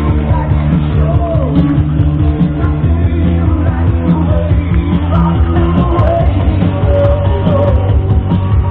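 Rock and roll music with singing playing steadily.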